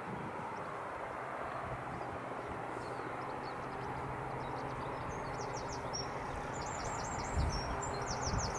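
BAE Hawk T1 jet engines running as the jets taxi: a steady distant rumble and hiss. From about three seconds in, a small bird sings over it in high, rapid trills, and there are two short low bumps near the end.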